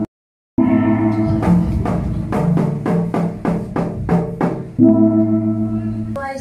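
Background music: held chords over a run of regular drum strikes. It cuts out completely for about half a second just after the start, then comes back at full level.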